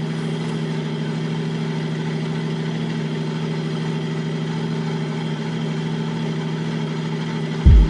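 1JZ-GTE turbocharged 2.5-litre straight-six, swapped into a Nissan 240SX S13, idling steadily while it warms up. Near the end, music cuts in with a loud drum hit.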